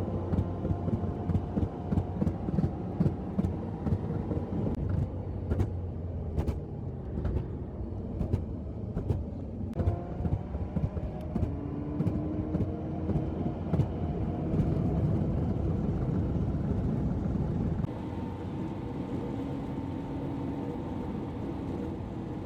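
A car driving at road speed: steady engine and road rumble, with a faint engine drone that slowly rises and falls in pitch and occasional light knocks.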